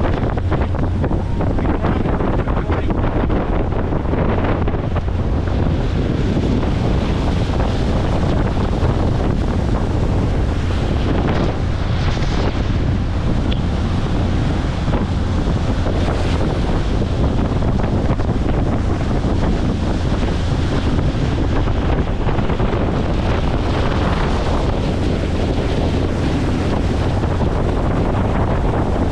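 Wind buffeting the microphone over a steady rush of water, as from a motorboat under way on a lake.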